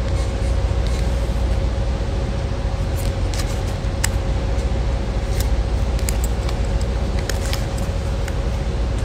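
Steady low room hum with a faint steady tone above it, and a few light clicks scattered through, the first about three seconds in.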